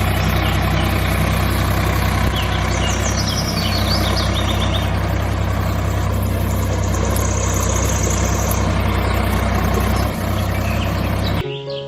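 A motor running steadily with a low, even hum, cutting off abruptly near the end. Birds chirp over it twice.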